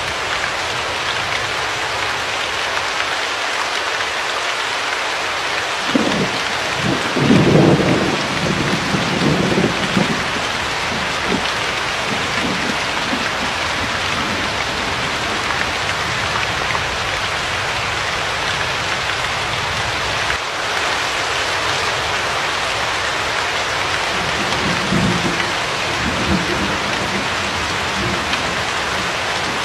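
Steady heavy rain with thunder: a low rumble swells about six seconds in and rolls on for some four seconds, and a weaker rumble comes near the end.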